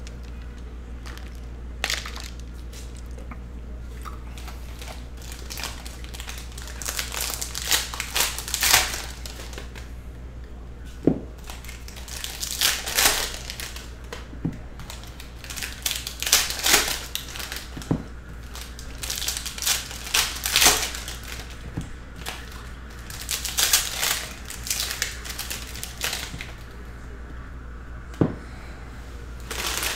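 Foil wrappers of Panini Score football card packs crinkling and crackling in irregular bursts as the packs are handled and opened, along with cards being flipped through.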